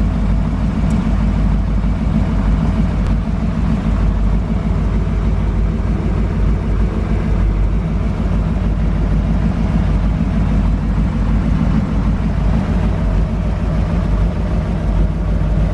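Twin-turbo V8 of the F Bomb Camaro idling steadily, heard from inside the cabin, with no revving.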